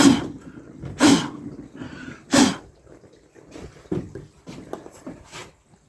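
Three loud scraping knocks about a second apart, then lighter clicks and taps: a fresh bronze casting being dug out of moulding sand in a bucket.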